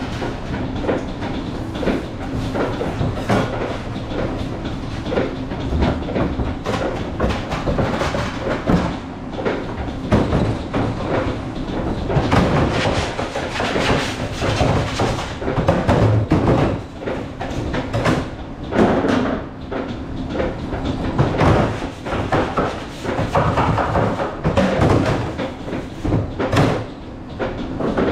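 Commercial kitchen work noise: irregular clatter of pans and utensils over a steady low machine rumble, with music playing underneath.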